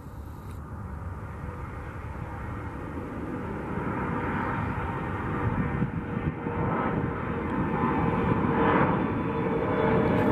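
Bombardier CRJ regional jet's twin rear-mounted turbofans at takeoff power as it climbs out: a rushing jet noise growing steadily louder, with a steady whine coming through in the second half.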